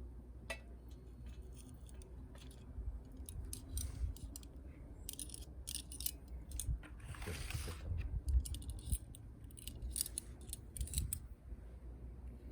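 Twig fire crackling and popping in a wood gas stove, irregular sharp snaps throughout, with a short rush of noise about seven seconds in. Wind rumbles on the microphone underneath.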